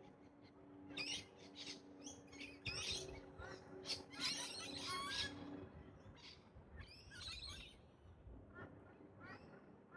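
Birds chirping in quick runs of short, wavering calls: a busy run from about a second in to past the middle, then a shorter burst a little later.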